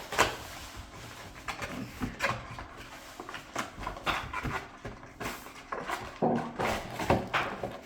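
Hands opening and handling a cardboard box of trading card packs: irregular rustling, crinkling and light taps.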